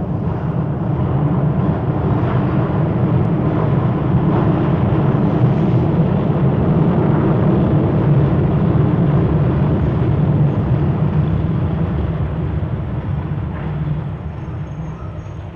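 A steady, heavy engine rumble that fades away over the last couple of seconds.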